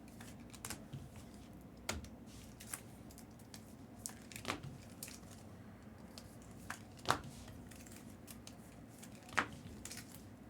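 Light desk handling sounds: scattered small taps, clicks and rustles, with four sharper taps spread a couple of seconds apart.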